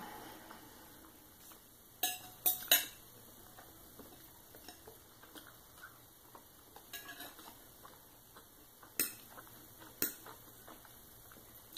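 Metal knife and fork clinking and scraping against a ceramic plate while cutting food, with a handful of sharp clinks: three close together about two seconds in, then single ones later, and faint small ticks between.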